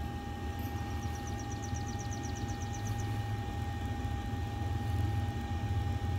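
Pit Boss portable pellet grill's fan and auger motor running steadily while the auger is primed to feed pellets into the firepot: a low hum with a steady whine over it. A quick run of high chirps comes in about a second in and lasts about two seconds.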